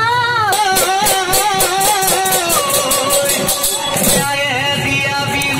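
Assamese Bihu folk music: a singing voice over drums, with a quick even run of percussion strokes that stops about four seconds in.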